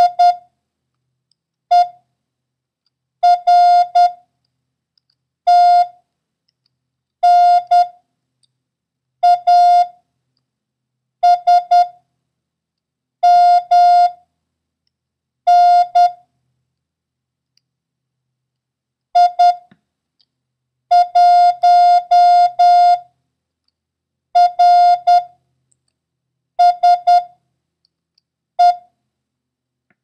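Morse code practice characters sent as an on-off keyed beep tone: short and long beeps of one steady mid pitch, grouped into letters and numbers of the random run, one character at a time with a pause of one to three seconds between them.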